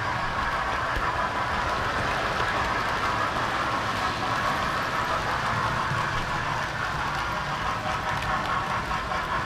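Model railway train running along the track, a steady whirring rumble of wheels and motor heard close up from on board a moving carriage.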